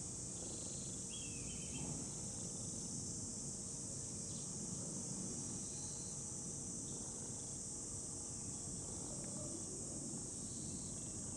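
Steady, high-pitched insect drone, with a brief high chirp about a second in.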